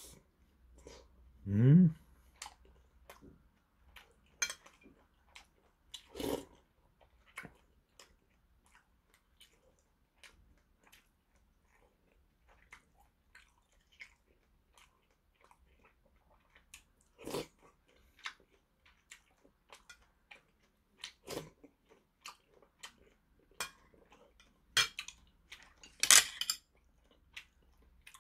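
Close-up eating sounds: chewing and slurping of dumpling soup, with a metal spoon clinking now and then against a porcelain bowl, loudest in a cluster near the end. A short rising hum comes about two seconds in.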